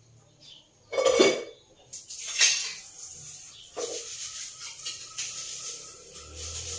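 Metal kitchenware clattering: a loud ringing clank about a second in and a sharp knock a second later, then a steady hiss with a few light knocks.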